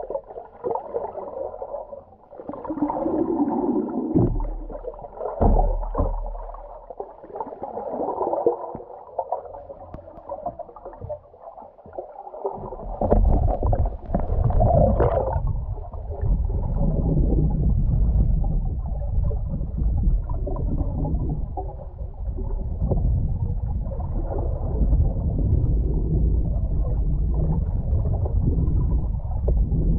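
Muffled underwater rushing and gurgling of water flowing past a GoPro on a submersible towed behind a kayak. About thirteen seconds in, it turns into a heavier, steady low rumble.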